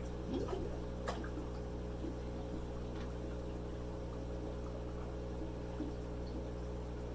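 Electric aquarium air pumps humming steadily, with faint water bubbling and a couple of small light ticks.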